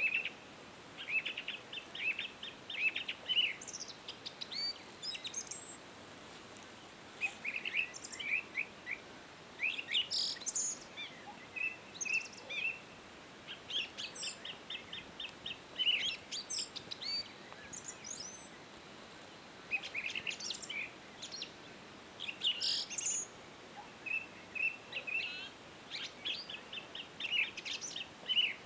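Small birds chirping and calling: quick series of short, high notes, several voices overlapping, coming in clusters with brief lulls between them.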